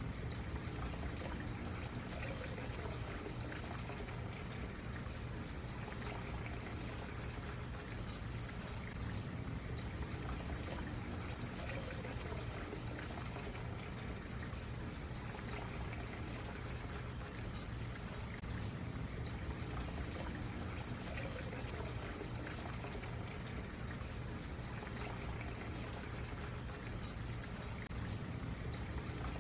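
Stream water running and trickling steadily.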